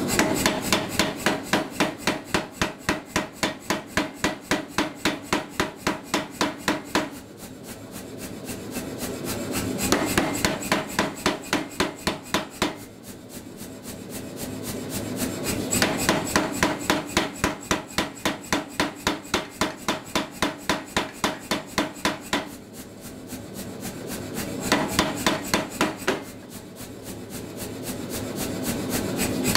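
Say-Mak power hammer striking a glowing steel hammer blank on flat dies in runs of rapid, even blows, about four to five a second. The runs are separated by pauses of a few seconds in which the hammer's motor hums and swells before the blows start again.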